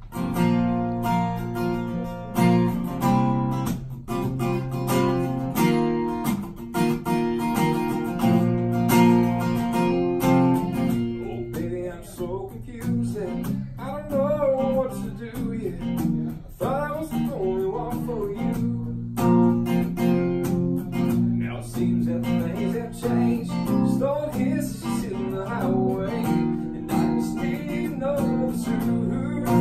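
Acoustic guitar with a capo strummed in a steady rhythm, playing a song's instrumental introduction before the singing comes in.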